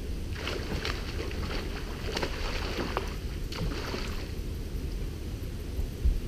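Water lapping and gurgling against a bass boat's hull, a run of small irregular splashes for about four seconds, over a steady low rumble of wind on the microphone.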